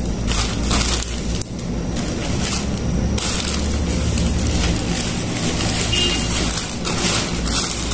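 Plastic bag rustling and crinkling close to the microphone, in uneven crackly surges.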